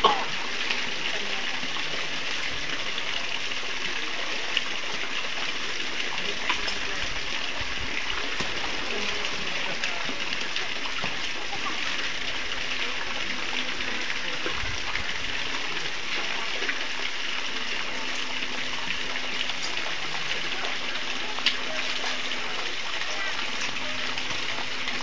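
Steady rushing noise of running water, even throughout, with a few faint clicks.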